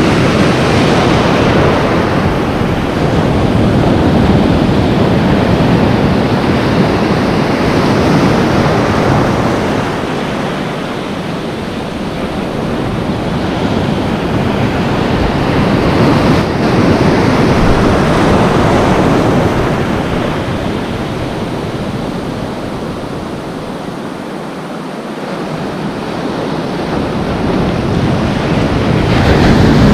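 Ocean surf breaking and foaming in close around a wading person: a loud, continuous rushing wash that swells and eases with each set of waves, about three swells over the half-minute.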